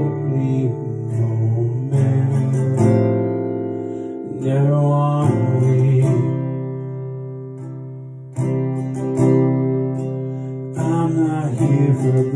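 A man singing to his own strummed acoustic guitar. The chords are struck and left to ring, fading away before a strong new strum about eight seconds in.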